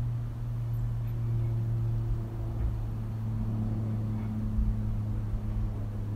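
Lockheed C-130J Hercules passing over at altitude, its four turboprop engines and propellers giving a steady low drone.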